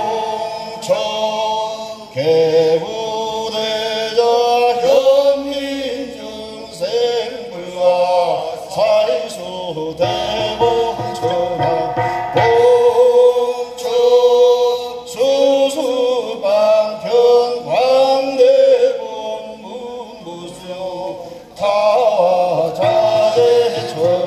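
Korean Buddhist ritual chant sung in long, wavering held notes that slide between pitches, phrase after phrase with brief pauses for breath.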